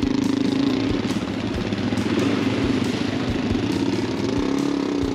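Suzuki DR-Z400 single-cylinder four-stroke dirt bike engine idling steadily, a continuous low pulsing run with no revving.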